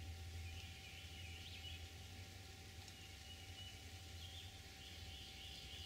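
Faint outdoor ambience: a steady low rumble with scattered faint high bird calls coming and going, and a faint steady hum.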